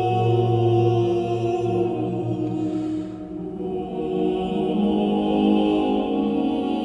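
Slow ambient music of long, sustained chords. About three seconds in the low note drops out and the sound dips briefly before a new chord swells in.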